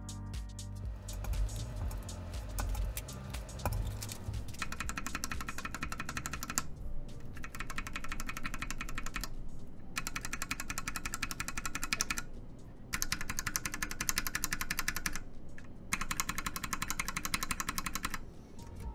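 c3 Kiwi tactile mechanical keyboard switches, with UHMWPE housings, T1 stems and 67 g springs, pressed rapidly over and over. They come in about five runs with short breaks between, comparing a stock switch against switches lubed on the spring, the stem and the housing. The sound is a light, airy tactile clacking.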